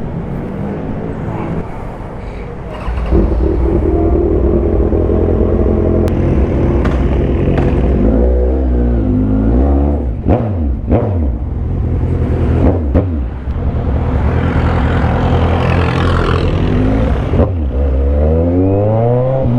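Kawasaki Z1000 inline-four running through a full aftermarket Orion exhaust while riding. It opens the throttle about three seconds in, the revs drop and climb with gear changes midway, and it makes a long rising rev near the end under acceleration.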